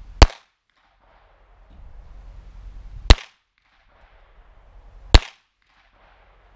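Three .22 LR pistol shots from a Ruger Mark III firing CCI Mini Mag 36 grain hollow points, the first just after the start, the next about three seconds later and the last about two seconds after that. Each is a single sharp crack.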